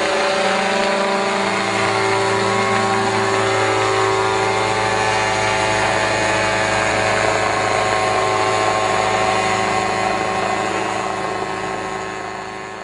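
Small engine of a power sprayer running steadily at a constant speed, with a slight drift in pitch, fading out near the end.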